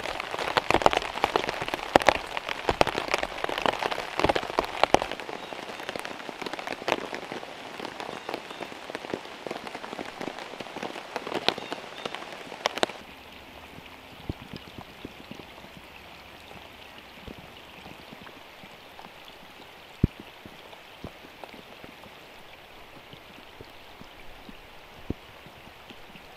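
Heavy rain pattering on a tarp shelter, a dense crackle of drop impacts. About halfway through it abruptly turns quieter and duller, leaving a soft hiss with scattered single drops, one louder than the rest.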